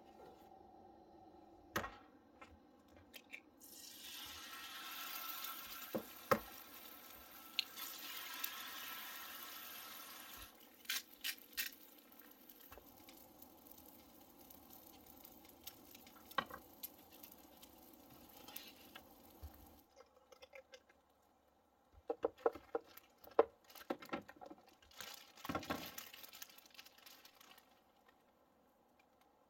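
Quiet food-preparation handling sounds: a hiss lasting several seconds a few seconds in, scattered clicks and knocks of utensils and a paper plate, and a plastic bag crinkling a few seconds before the end.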